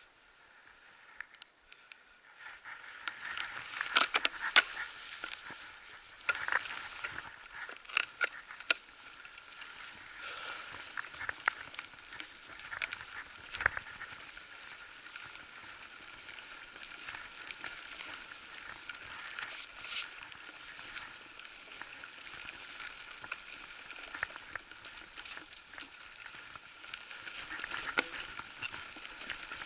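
Electric bike rolling along a dirt forest trail: tyres crackling over leaf litter and twigs, with scattered knocks and rattles as it goes over bumps, over a steady thin whine. The sound picks up about two seconds in.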